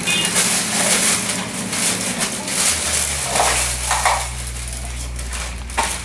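Woven plastic bag rustling and crackling as dried chimpanzee skulls are pulled out of it and handled, with a few light knocks. A low steady hum comes in about three seconds in.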